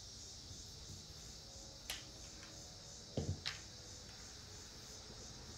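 Quiet room tone with a few short sounds from a craps stick and dice on the felt table: a sharp click about two seconds in, then a soft knock followed closely by another click a little after three seconds in.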